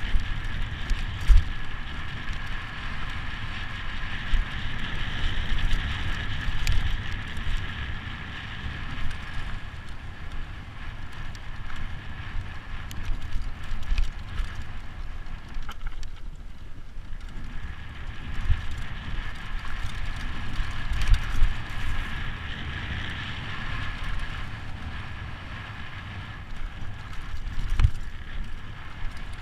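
Mountain bike descending a rough dirt trail at race speed: tyres on loose dirt, the bike knocking and rattling over bumps, and wind rushing over the camera microphone. A steady high-pitched hiss runs through it and thins out for a moment about halfway.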